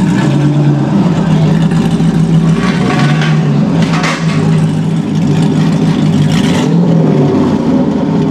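Mazzanti Evantra's V8 engine idling steadily and loudly, with no revs.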